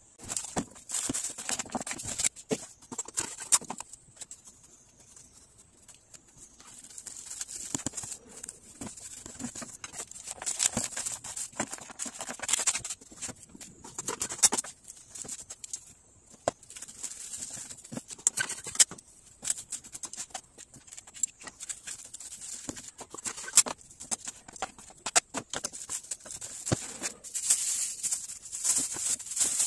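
Plastic cling film and plastic meat trays being handled: irregular crinkling and rustling with scattered clicks and taps as raw sliced pork is wrapped into portions, over a steady high-pitched whine.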